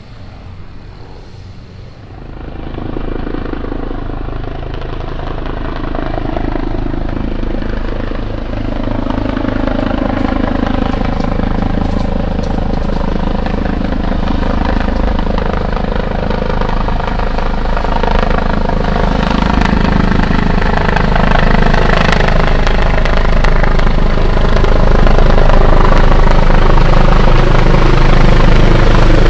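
Medical rescue helicopter approaching, its rotor beat and turbine growing steadily louder as it comes in to land.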